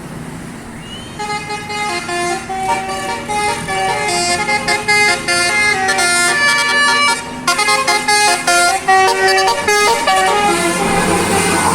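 Bus 'telolet' musical air horn playing a tune of quick, stepped notes. It starts about a second in and stops about ten seconds in, leaving vehicle engine and road noise.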